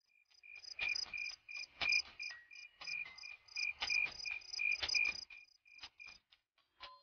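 Crickets chirping as a night-time sound effect, a steady run of short high chirps about three a second with a few sharper clicks among them. The chirping dies away about six seconds in.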